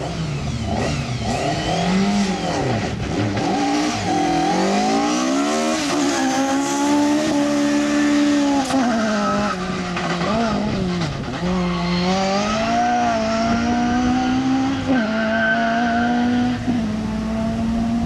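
Ford Sierra RS500 Cosworth rally car's turbocharged four-cylinder engine driven hard. Its pitch climbs and drops again and again as it revs up and comes off the throttle, then settles into a steadier, slowly rising note in the second half.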